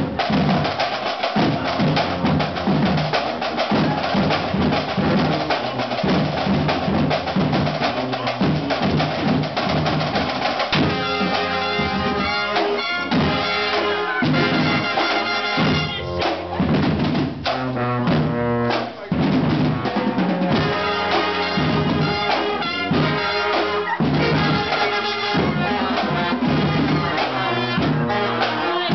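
Marching band of saxophones, trumpets, trombones, sousaphone and marching drums playing an up-tempo groove. For the first ten seconds or so a long held horn note rides over the drum beat, then the horns switch to short, punchy repeated notes.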